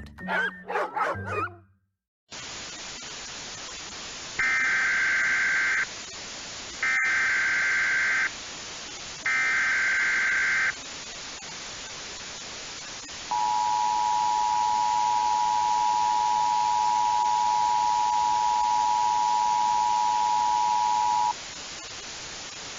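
Emergency Alert System tones over steady radio static: three short bursts of screeching SAME header data, then an eight-second two-tone attention signal, heralding a tornado warning. The tail of a commercial's jingle and voice opens it, cut off by a half-second gap.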